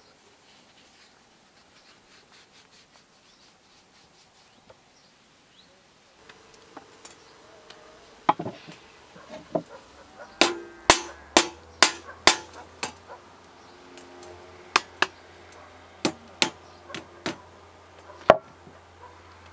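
Wooden mallet knocking the wooden handle down onto the blade of an old Disston crosscut saw, a run of sharp knocks starting about eight seconds in, some about half a second apart. Before that, faint rubbing of wire wool polishing a brass saw-nut.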